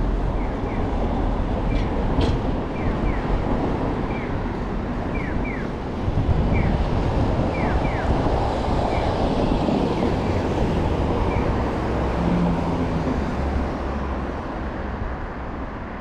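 Street traffic going by, louder from about six seconds in, with wind noise on the microphone.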